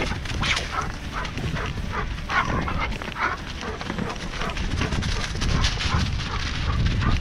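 A dog barking and yipping repeatedly while running alongside a mountain bike, over tyres crackling through dry leaves and a steady low rumble.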